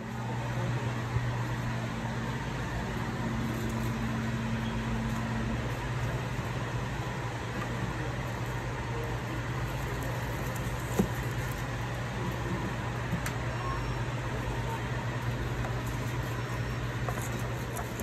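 Steady low mechanical hum with a faint hiss, the running of an appliance or ventilation, with a few small clicks and one sharper knock about eleven seconds in.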